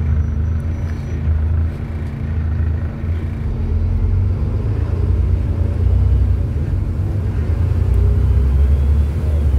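Volvo B7TL double-decker bus's 7.3-litre Volvo D7C diesel engine running with a steady low rumble as the bus creeps along in traffic, heard from inside the bus; the rumble grows a little louder about halfway through.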